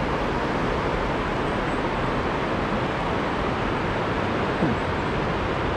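Steady rushing of river water: an even, unbroken noise with no rhythm.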